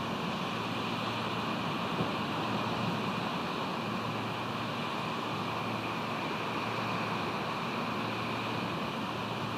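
Steady rush of wind and ocean surf, an even noise with no distinct events.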